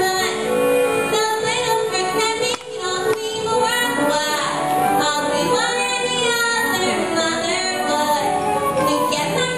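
A female solo voice singing a slow musical-theatre song over instrumental accompaniment, with long held, wavering notes and a short break between phrases about two and a half seconds in.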